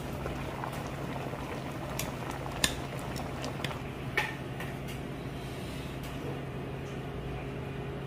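Spicy fish stew with ramyeon noodles bubbling at the boil in a metal pot, with metal tongs clinking against the pot a few times in the middle as the noodles are stirred and lifted.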